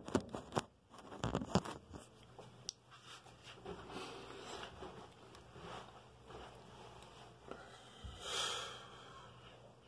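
Handling noise from a phone being set up to film: a quick run of clicks and knocks in the first two seconds, then soft rustling of clothing, with a breathy hiss about eight seconds in.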